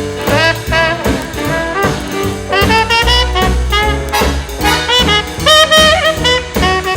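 Swing jazz band playing an instrumental break, with horns such as trumpet, trombone and saxophone over a walking bass and rhythm section.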